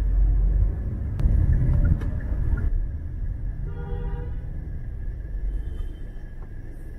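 Street traffic rumble, loudest in the first couple of seconds, with a brief horn-like tone about four seconds in.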